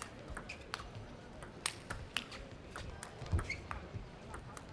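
Table tennis rally: a celluloid ball clicking sharply off the bats and the table, a few hits a second at uneven intervals.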